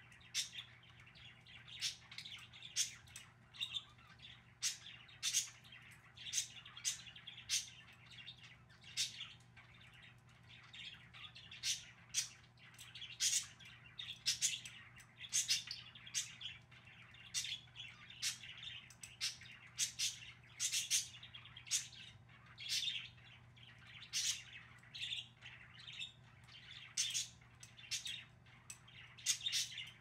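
Pet budgerigars chattering steadily, with frequent sharp, high chirps at irregular intervals.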